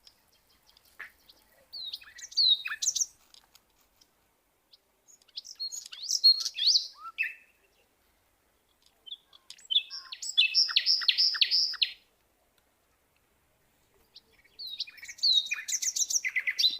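Birds chirping in short bursts every few seconds, high quick notes with little glides; one burst, about ten seconds in, is a fast run of about five evenly spaced notes.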